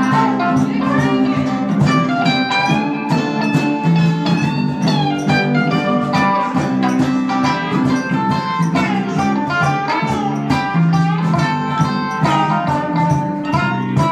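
Live jam band music: acoustic and electric guitars strumming and picking together, with a trumpet playing bending melodic phrases over them.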